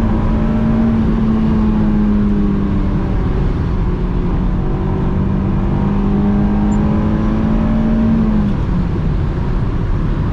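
Honda S2000's JDM F20C inline-four engine pulling under load at a high, steady pitch, heard inside the cabin over tyre and road noise. Its note falls away about eight and a half seconds in.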